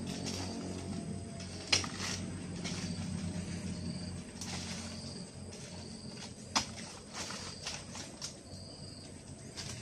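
Oil palm fruit bunches being pushed and heaved up with poles onto a pickup's loaded rack, giving a few short sharp knocks, the loudest about two seconds in and near seven seconds. Under them runs a steady low hum, with insects chirping on and off.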